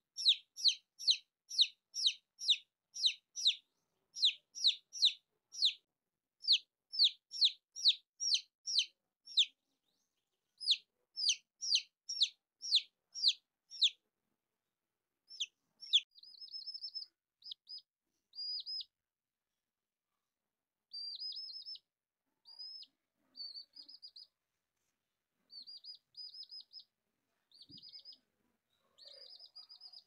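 Domestic chicken chicks peeping: loud, rapid falling peeps, two to three a second in runs, give way about halfway through to quieter, shorter trilled chirps.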